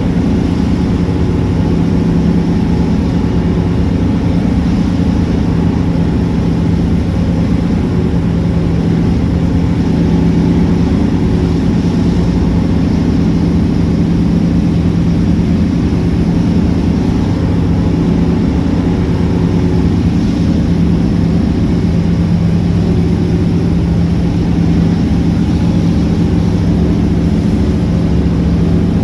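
A steady engine drone at a constant pitch, running evenly without a change in speed.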